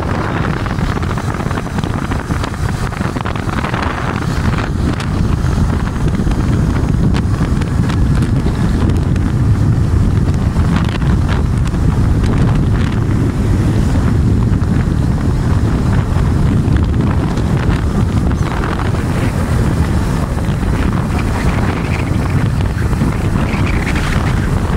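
Wind buffeting the microphone of a moving motorcycle: a steady, loud low roar, with the bike's running noise mixed in underneath.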